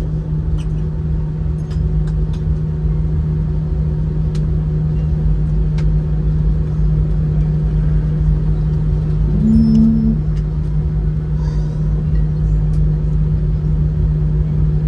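Steady low rumble and hum inside an Airbus A319's passenger cabin, parked at the gate after landing, with a brief extra hum about halfway through and a few faint clicks.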